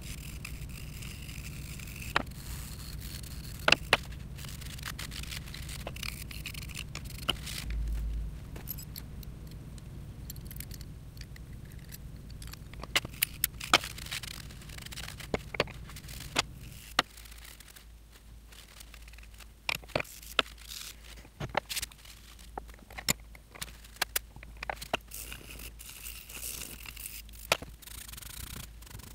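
Metal slide parts of a Taig mini-lathe being handled and cleaned by hand: scattered sharp clicks and taps as the pieces knock together and are set down, with rag scraping in between.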